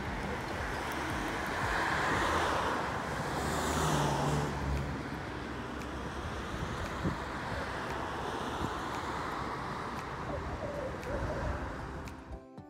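Road traffic: cars passing on a road over a steady hiss, swelling as vehicles go by about two and four seconds in, then fading out near the end.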